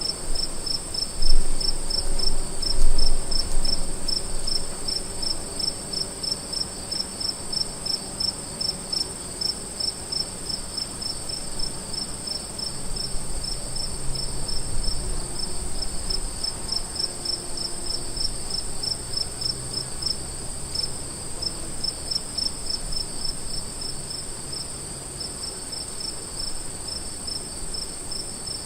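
Crickets calling together: one high, unbroken trill over a second, lower series of evenly spaced chirps that keeps up without a break, with a faint low rumble underneath.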